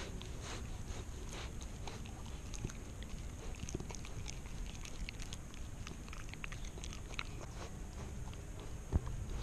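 Golden retriever puppy chewing a piece of banana, with many small mouth clicks scattered throughout. A single knock sounds near the end.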